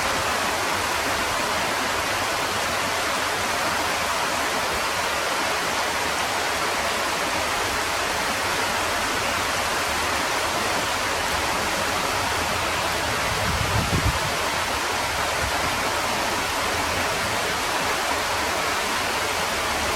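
Heavy rain pouring down, a dense steady hiss. A brief low rumble breaks in about fourteen seconds in.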